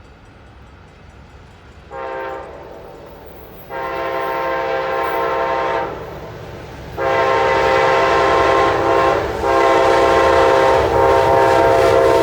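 Amtrak locomotive's multi-chime air horn sounding as the train approaches: one short blast about two seconds in, then a long blast, then a longer one broken twice by brief gaps, each louder than the last.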